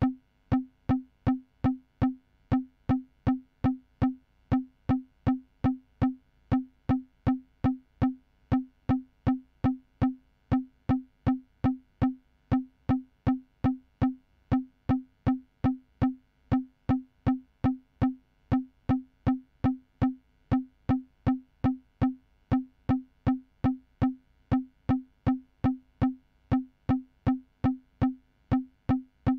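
Electronic percussion: one short, mid-low pitched blip repeating steadily about twice a second, every hit the same.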